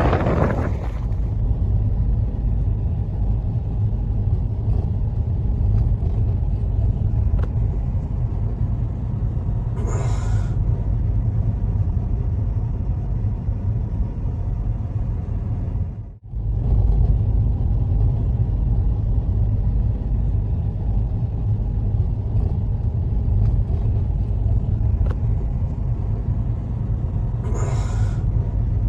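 Blizzard wind blowing in a steady low rumble, with brief hissing gusts about a third of the way in and near the end. The sound cuts out for an instant just past halfway.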